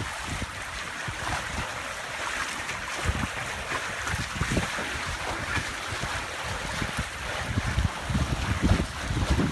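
Wind buffeting the microphone over the rushing hiss of water along the hull of a Corsair 28 trimaran under sail. The buffeting grows heavier near the end.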